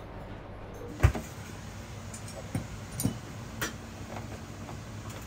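A sharp knock about a second in, then three lighter knocks, over a steady low hum.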